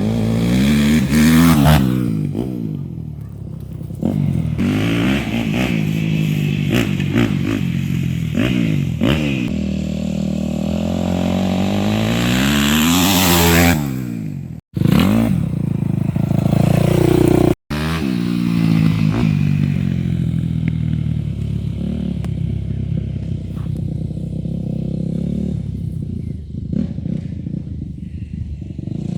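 Yamaha YZ250F four-stroke single-cylinder dirt bike engine being ridden hard, its pitch climbing and dropping again and again as it revs up through the gears and backs off. The sound cuts out sharply twice, very briefly, near the middle.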